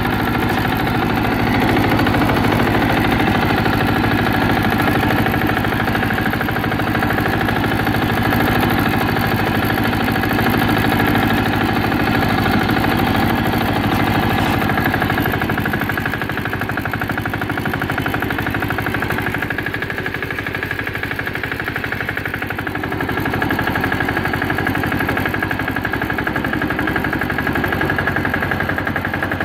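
Repowered Ford T-1000 garden tractor's engine running steadily while the tractor is driven, with a rapid, even exhaust beat. It dips slightly in loudness for a few seconds past the middle.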